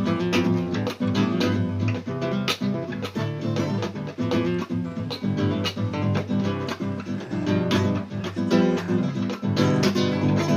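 Background music: acoustic guitar played with quick plucked notes and strums.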